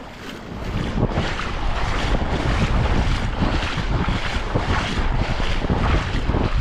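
Wind buffeting the microphone: a steady, rough rush with a low rumble that builds over the first second and then holds.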